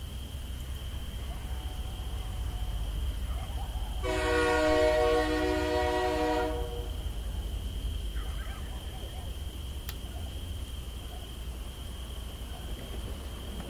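Model diesel train running with a steady low rumble. About four seconds in, a multi-note diesel locomotive horn sounds once for about two and a half seconds.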